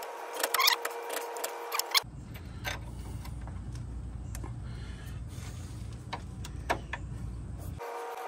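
Light metallic clicks and taps as a new upper control arm and its cam bolt are handled and fitted into the frame bracket. A steady hum runs under the first two seconds and returns near the end; in between, a low steady rumble.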